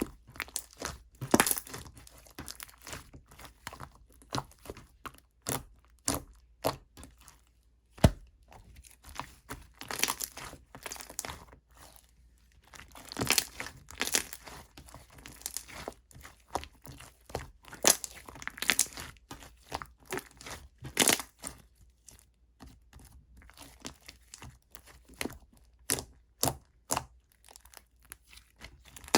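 Chewy clear slime being stretched and squished by hand, giving irregular sticky crackles, pops and short tearing sounds.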